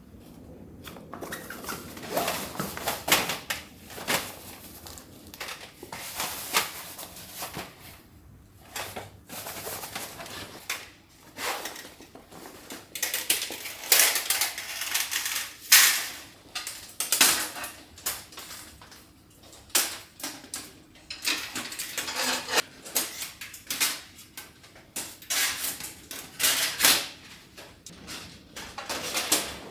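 Metal camping gear being handled, unpacked and set down: irregular clinks, clatters and knocks.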